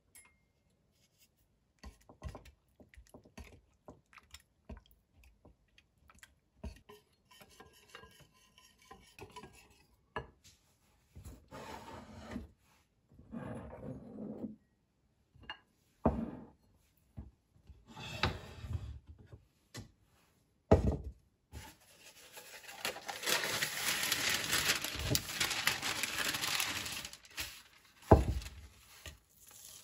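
A wire whisk beats a runny filling in a ceramic bowl, in short spells, among clinks and knocks of utensils and dishes on a wooden table. Later comes a long, loud rustling of baking paper being spread out, and a thump near the end as a bowl is set down.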